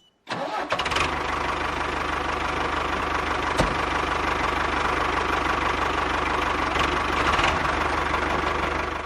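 A small engine running steadily at an even, fast beat. It starts just after a brief silence, and there is one short click about three and a half seconds in.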